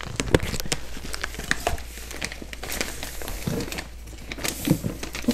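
Large plastic bag of rice crinkling as it is handled and gathered shut.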